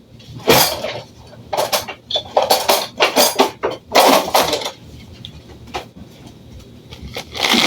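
Kitchen utensils and dishes clattering and scraping in a quick run of short bursts for the first few seconds, then again near the end.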